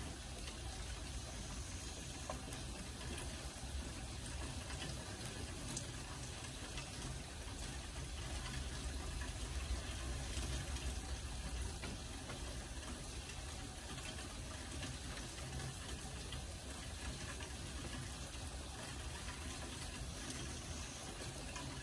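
Steady rain falling, a continuous even hiss flecked with faint drop ticks.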